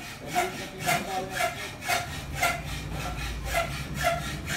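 KDK W40Y 16-inch wall fan running, with a scraping rub that repeats about twice a second over a low steady motor hum.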